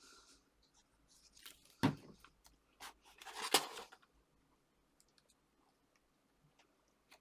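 Card and paper being handled on a craft table: a sharp tap about two seconds in, then a short crunching rustle with a click about a second and a half later, among faint small clicks.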